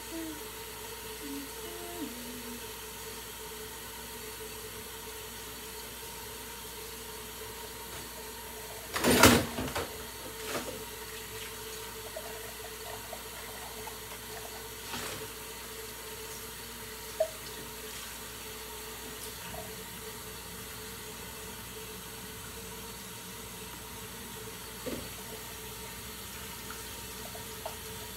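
Kitchen faucet running steadily into a stainless-steel sink as dishes are washed by hand. A loud clatter of dishes about nine seconds in, with a few lighter knocks later.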